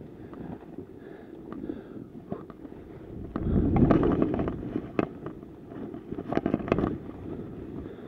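Skis scraping and hissing through chopped-up, tracked snow, with wind on the helmet-camera microphone. The rush of snow gets much louder about three and a half seconds in during a turn, and a few sharp clicks follow.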